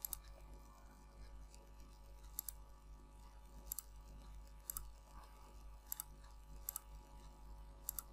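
Faint computer mouse clicks, about eight of them, scattered at irregular intervals.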